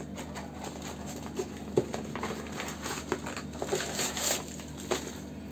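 A cosmetics mailer box and its wrapping being handled and unpacked by hand: irregular crinkling and rustling with scattered small clicks, and one sharper click a little under two seconds in.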